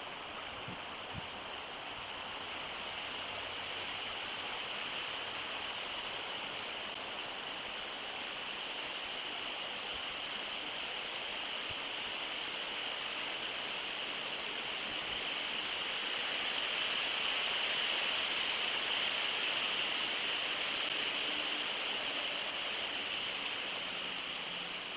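Steady outdoor background noise: an even, high hiss that swells a little past the middle and eases again toward the end.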